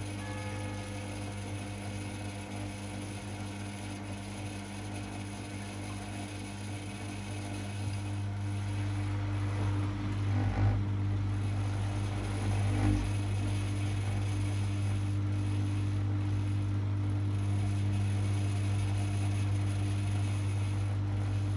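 A privileg 5020 front-loading washing machine running mid-programme, with a steady deep hum and a few steady tones above it. The hum grows louder partway through, and two dull knocks come a couple of seconds apart.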